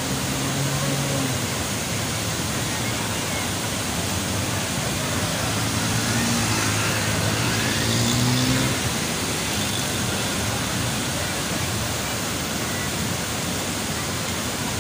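Muddy floodwater rushing across a road and pouring over a broken edge in a steady, even wash of noise. A faint low drone comes and goes about six to nine seconds in.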